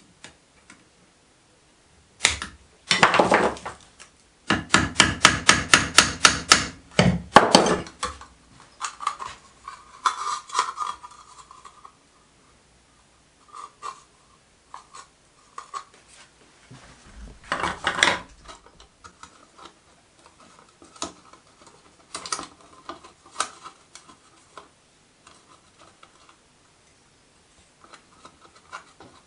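Hand tools working a thin copper boiler shell: a quick run of loud metal taps, about five a second, for several seconds, then a single burst and scattered quieter clicks and scraping as a jig is tightened on the seam.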